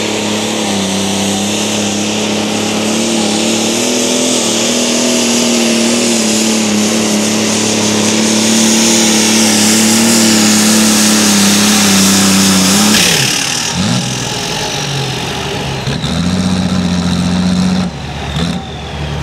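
Light super stock pulling tractor's engine running flat out at high, steady revs during a pull, its pitch rising slightly about four seconds in. Just after thirteen seconds in the engine note cuts off abruptly as the throttle comes off. A lower engine note then holds for a couple of seconds and drops away near the end.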